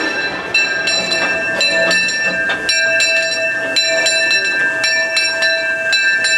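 Steam locomotive's bell rung steadily, about two strokes a second, each stroke ringing on into the next, as the train comes into the station.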